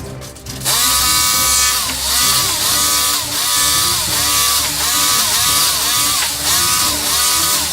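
Electric power tool starting up abruptly and running loud, its motor pitch dipping and recovering about twice a second as the load changes.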